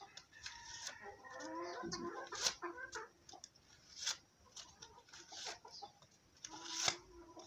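A chicken clucking in the background, with sharp rustles and clicks of paper banknotes being pulled from a wallet.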